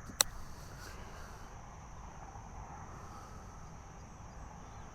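A single sharp strike of a 56-degree sand wedge hitting a golf ball on a short chip, about a quarter second in. A steady high insect buzz, like crickets, runs underneath.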